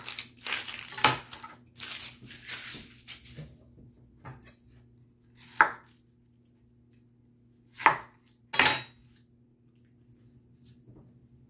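Chef's knife cutting an onion on a plastic cutting board: a quick run of blade knocks and slicing strokes over the first few seconds, then a few single sharp knocks on the board.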